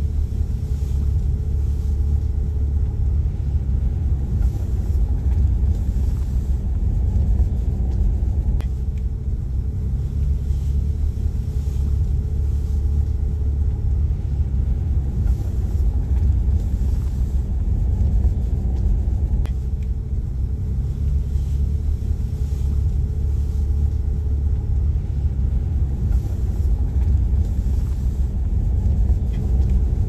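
Car driving slowly, heard from inside the cabin: a steady low rumble of engine and road noise.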